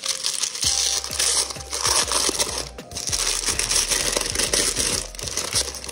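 Thin white wrapping paper crinkling and rustling continuously as hands unfold a wrapped package.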